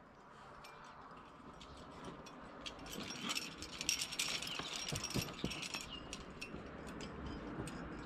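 Metal climbing gear jingling: carabiners and quickdraws on a harness clinking in a spread of light clicks, busiest from about three to five seconds in.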